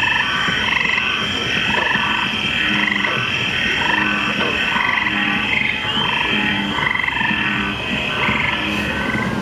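A chorus of croaking frog calls at several pitches, short calls repeating about once or twice a second, over a steady rushing background.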